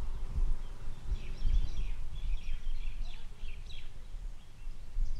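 Birds chirping in quick, short calls for about three seconds, over a low, fluttering rumble of wind on the microphone.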